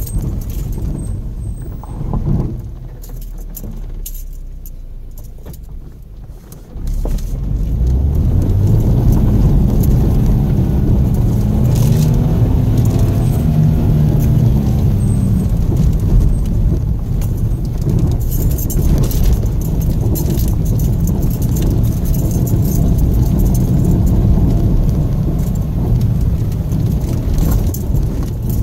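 Subaru XV Crosstrek's flat-four engine and tyres on a dirt road, heard from inside the cabin. Quieter for the first few seconds, it gets much louder about seven seconds in, and the engine's pitch rises and then falls as the car pulls. Frequent light clicks and rattles come from the car jolting over the rough surface.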